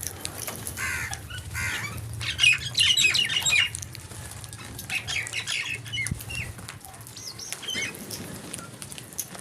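A flock of crows cawing, harsh calls overlapping, loudest and densest about two to three and a half seconds in, then thinning to scattered calls.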